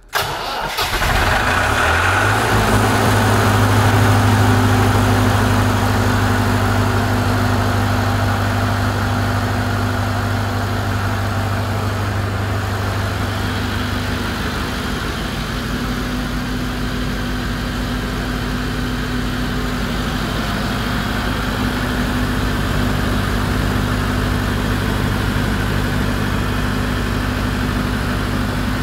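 Diesel generator set starting up: the engine catches at once, rises in pitch over the first two seconds or so as it comes up to speed, then runs steadily.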